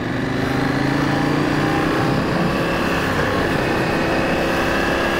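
Trail motorcycle's engine running steadily while riding, heard from the bike with a constant hiss of wind noise; the engine note climbs a little over the first two seconds, then holds.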